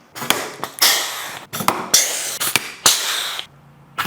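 Pneumatic rivet gun setting rivets, four pulls in a row, each a sharp snap followed by a short hiss of air.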